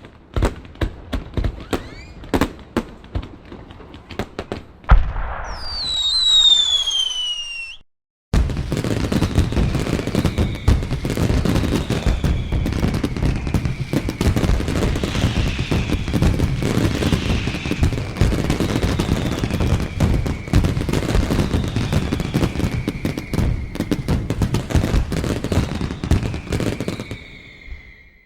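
Fireworks sound effects: about five seconds of sharp separate cracks, then a bang followed by a falling whistle. After a short break comes a long dense barrage of bangs and crackling, with falling whistles repeating through it.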